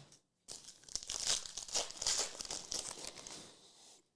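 Foil trading-card pack wrapper being torn open and crinkled: a crackly tearing and rustling for about three seconds, fading out near the end.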